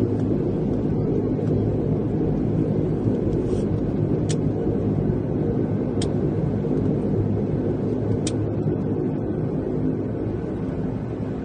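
Steady drone of a Dash 8-300's twin turboprop engines and propellers heard from inside the cabin, with three faint clicks spaced about two seconds apart.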